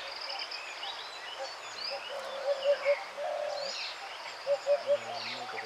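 Birds calling in a mixed chorus of chirps and whistles, with a low three-note call repeating about every two seconds.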